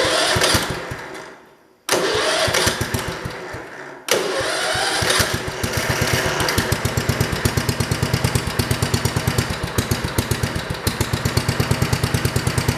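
1968 John Deere 110 garden tractor's single-cylinder engine starting twice and fading out within about two seconds each time, then catching about four seconds in and running steadily with an even pulsing beat.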